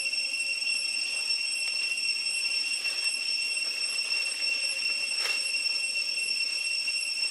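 A steady high-pitched whine that holds one pitch, with a few faint ticks, one of them a little clearer about five seconds in.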